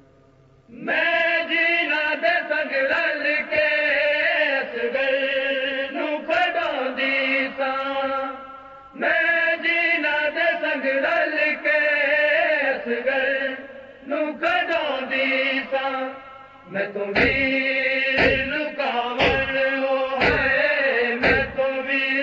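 Men's voices chanting a Shia noha in Punjabi, sustained pitched phrases with short breaks between lines. From about 17 seconds a steady low thump comes about every 0.7 seconds beneath the chant: the rhythmic chest-beating (matam) that keeps time with a noha.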